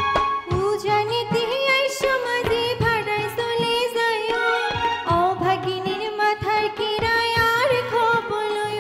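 Chittagonian regional folk song: a woman singing over a bamboo flute melody and hand-drum accompaniment.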